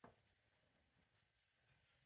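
Near silence: faint background ambience, with one soft click at the very start.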